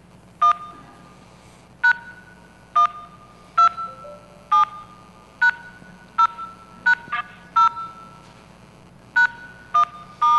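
Telephone keypad DTMF tones: about a dozen short two-tone beeps at uneven intervals, keyed in on a phone call as commands to a VoIP botnet's PBX.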